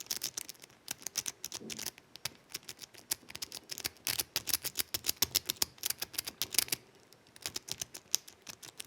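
Rake pick being worked rapidly in and out of a RUSSWIN 6-pin lock cylinder: a fast stream of small metallic clicks and scrapes as the rake flicks over the pin tumblers, pausing briefly twice. This is the raking that sets the pins.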